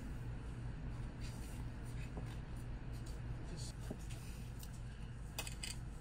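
Steady low hum with a few faint clicks and taps from plastic model parts and a screwdriver being handled, the clearest pair near the end.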